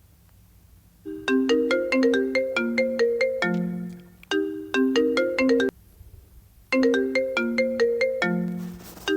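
A phone ringtone melody of quick, bright struck notes starts about a second in. After a one-second pause the same short phrase plays again.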